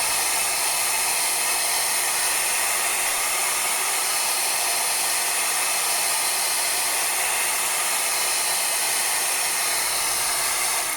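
Hot-air gun blowing steadily, heating the phone to soften the adhesive under the battery; it winds down right at the end.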